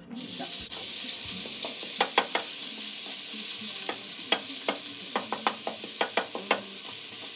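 Minced pork dropped into hot sesame oil in a nonstick frying pan, sizzling from the moment it lands, while a wooden spatula stirs it with many short knocks and scrapes against the pan.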